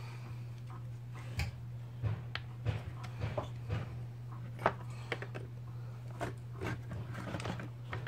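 Scattered clicks and light knocks as a Stihl MS180C chainsaw and its small parts are handled and turned over on a workbench, over a steady low hum. The loudest knock comes a little past halfway.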